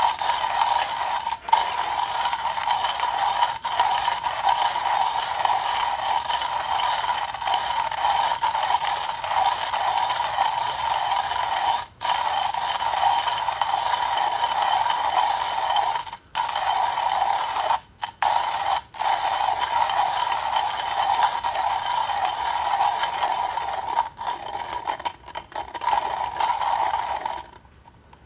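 Comandante C40 hand coffee grinder grinding coffee beans in its Nitro Blade conical steel burrs as the handle is cranked: a steady rattling, scraping grind with a few brief breaks. It stops near the end, with the 10 g dose fully ground.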